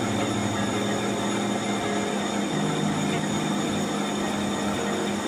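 Machine tool running steadily with its cutter at work on a steel sprocket hub, a continuous mechanical hum whose low tone steps slightly higher about two and a half seconds in.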